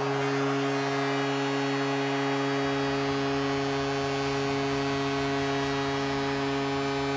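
Arena goal horn blowing one long, steady chord over a cheering crowd, the signal of a home-team goal.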